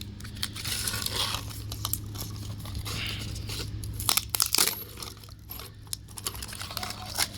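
Battery being pried and peeled out of an old Amazon Kindle tablet: irregular crackling and tearing with scattered sharp clicks as it comes loose.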